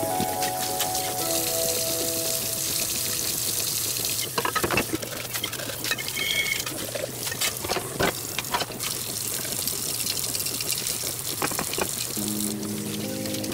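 Water running from a pull-down kitchen faucet into a stainless steel sink as tumblers are rinsed, with a run of clinks and knocks of cups and lids against the sink in the middle. Background music plays at the start and again near the end.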